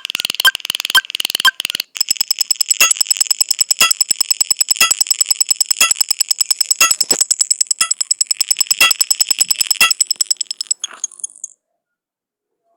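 A rapid-fire string of electronic sound effects: a fast train of ticks with a pop about twice a second, changing about two seconds in to even faster ticking under a high bell-like ringing tone with a stronger beat about once a second. It cuts off suddenly near the end, leaving silence.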